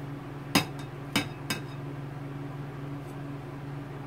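Kitchen knife clinking against a ceramic plate and cutting board three times, about half a second, one second and a second and a half in, as cut gourd strips are pushed off the blade. A steady low hum runs underneath.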